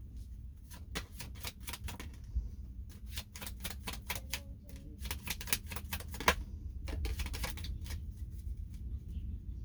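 Tarot cards being shuffled and handled: a run of quick, irregular clicks and snaps in several clusters, over a low room hum.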